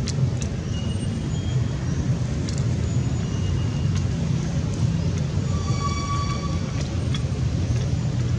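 Steady low outdoor rumble with no break, with a few faint clicks and short high chirps over it, and one brief pitched call with overtones about six seconds in.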